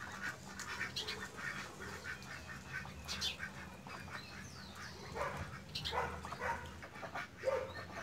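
Domestic ducks quacking: a string of short calls, a few of them louder about five to seven seconds in.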